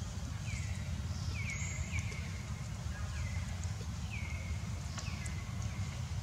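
Short high chirping animal calls, each dropping in pitch, repeating every second or so over a steady low rumble.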